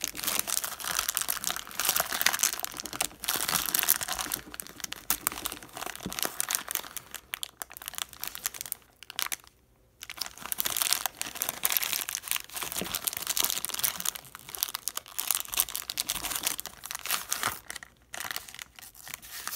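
Many layers of grey packaging wrap being crumpled and torn open by hand to free a stack of trading-card booster packs: dense crinkling and crackling with sharp tearing, broken by a short quiet pause about halfway through.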